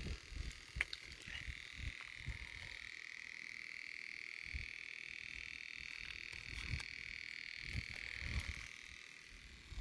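A frog calling with one long, steady high-pitched trill that starts about a second in and stops shortly before the end.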